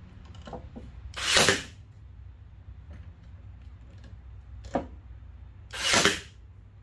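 Cordless brad nailer firing twice, about four and a half seconds apart, each shot a sharp burst lasting about half a second, driving short brads through a plywood drawer bottom to hold its rear edge.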